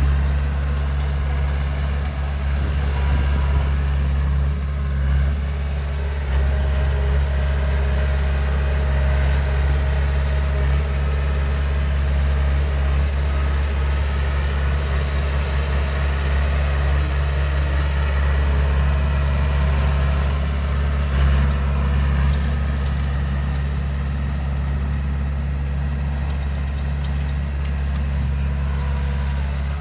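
Heavy diesel engine of earthmoving machinery running steadily with a deep, even hum.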